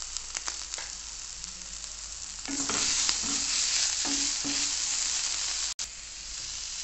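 Onions and ground spices frying in oil in a nonstick pan with a steady sizzle, while a wooden spatula stirs and scrapes the pan; the sizzle grows louder about two and a half seconds in as the mixture is stirred. This is the spice base of a curry being fried.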